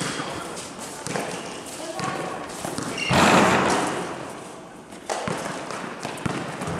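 A basketball game: the ball thudding on the hard court and players' voices, with a loud crash about three seconds in that fades over a second or so.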